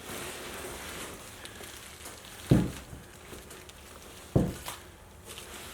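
Cardboard and foam packaging being handled with faint rustling, and two dull thumps about two seconds apart.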